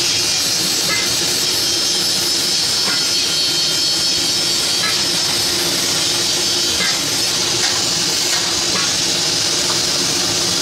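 Blowtorch flame hissing steadily as it heats a radiator header seam for soldering, with a few faint ticks.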